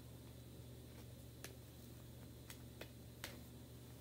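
Near silence with a low steady hum and a few faint clicks as a tacky plastic chalk transfer stencil is peeled up and handled on the board.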